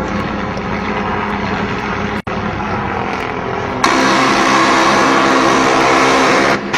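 AH-1 Cobra helicopter turbine and rotor noise, running steadily with a stack of engine tones. It cuts out for an instant about two seconds in. A louder, hissier engine sound takes over about four seconds in and stops abruptly near the end.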